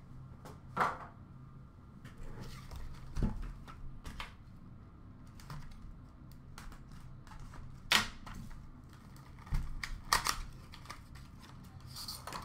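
Hands handling and opening a hockey card box. There are scattered sharp clicks and knocks of cardboard and plastic packaging being set down and pulled apart, with paper rustling between them.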